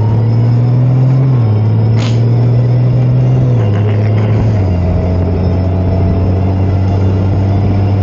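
A 2021 Honda Goldwing's 1833 cc flat-six engine running at road speed. Its steady note drops in pitch in three steps, a little over a second in, at about three and a half seconds, and near five seconds.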